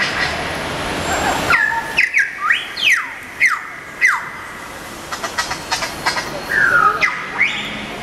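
Bird-like squawks and whistles: a string of short calls that glide sharply down and up in pitch, starting about a second and a half in. A run of fast clicks follows, then another longer falling call near the end.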